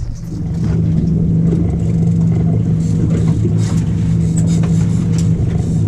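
Boat engine running steadily, a constant even drone.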